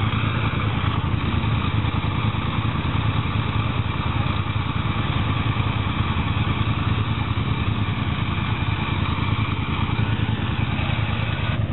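ATV engine running steadily at an even speed, with no revving.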